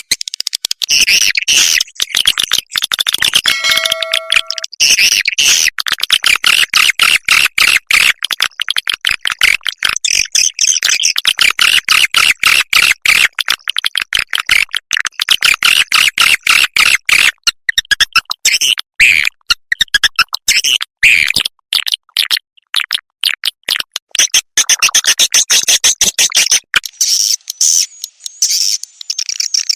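Recorded swiftlet calls played as a swiftlet-house lure sound: loud, rapid, dense chirping and twittering, with a brief steady electronic tone about four seconds in.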